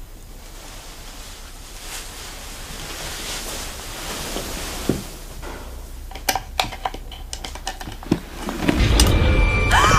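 A rising hiss swells, then a run of small sharp clicks as the metal latch on a carved wooden box is worked open. Near the end a deep rumble comes in as ominous music begins.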